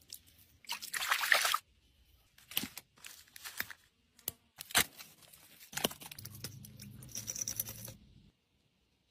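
Close-up handling sounds: a wet squelch as a glass light bulb is worked into mud, then clicks, crunches and a sharp snap as a multi-tool pliers breaks out the bulb's insides, and small glass fragments rattling.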